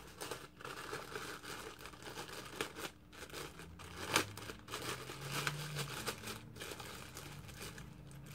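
Clear plastic wrapping crinkling and crackling in the hands as a microphone shock mount is unwrapped, with one sharper crackle about four seconds in.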